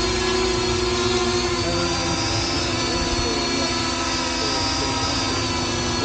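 Parrot Anafi quadcopter hovering, its four propellers giving a steady buzz with a high whine that wavers slightly in pitch.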